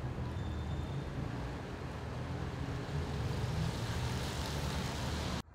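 Street noise from traffic: a steady low rumble with a hiss that swells about three seconds in, cut off abruptly near the end.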